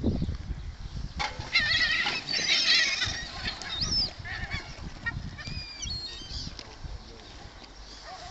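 A flock of gulls calling shrilly as they crowd in for food: a dense burst of overlapping, wavering calls for the first few seconds, thinning to a few scattered calls near the end.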